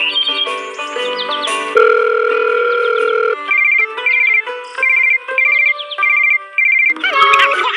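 Background music: a melody, then a held chord, then a trilling electronic ringtone-style figure repeating about six times. Some gliding tones come near the end.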